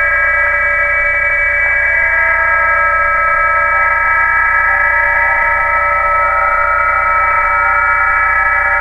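Receiver audio of about a dozen BPSK-31 digital-mode signals sharing the 20 m PSK calling frequency: many steady tones at different pitches sounding together, mid to high, with a low hum underneath. A new tone joins partway through.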